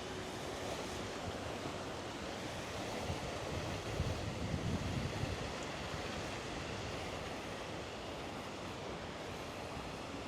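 Wind buffeting the microphone over a steady rushing outdoor noise, with a stronger gust about four seconds in.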